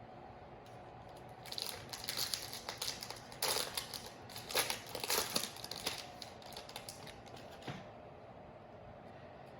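Foil wrapper of a trading-card pack crinkling as it is handled and opened, in a run of dry crackles with a few sharper loud ones in the middle, starting about a second and a half in and stopping near the end.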